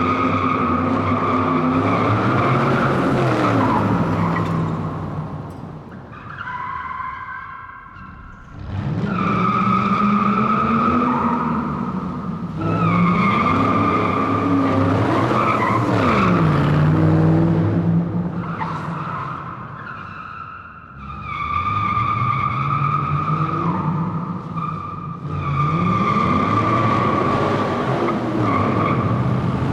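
Car tyres squealing on a hall floor in long, repeated skids: a steady high squeal with a lower tone rising and falling beneath it. The sound drops away briefly twice, about a third and two thirds of the way through.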